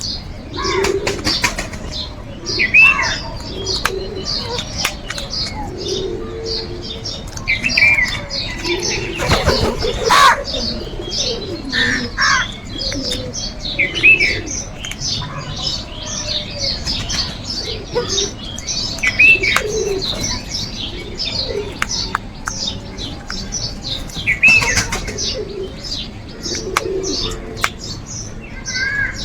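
Crows calling every few seconds over a dense chorus of small birds chirping, with low calls underneath. A short rustling burst comes about ten seconds in.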